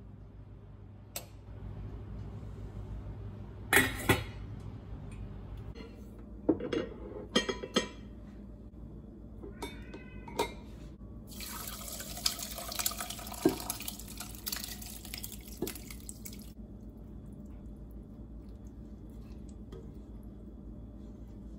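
A sieve and pot set down with a few sharp clatters and knocks, then curds and whey poured into a plastic sieve over a ceramic pot: liquid splashing and draining for about five seconds, the whey running off the cottage-cheese curds.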